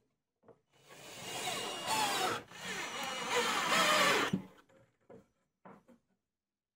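A wood screw being driven with a screwdriver through a magnetic knife strip's mounting hole into plywood, creaking and squeaking as it turns, in two spells with a short pause between. A few light knocks of handling follow.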